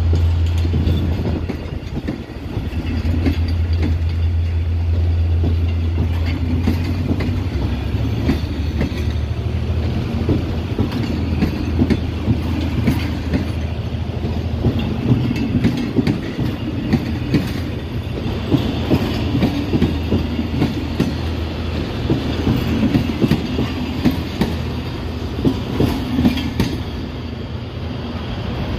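Egyptian Railways passenger coaches rolling past on steel rails, wheels clacking sharply and repeatedly over the rail joints over a continuous rumble. A deep steady hum dies away after about seven seconds.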